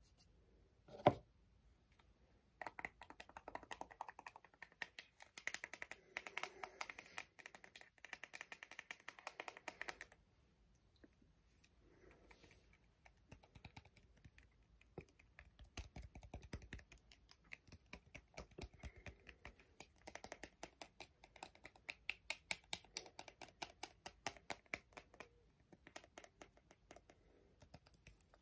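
Rapid fingertip tapping on a small hard household container, many quick light taps in bursts with short pauses. One louder single knock about a second in.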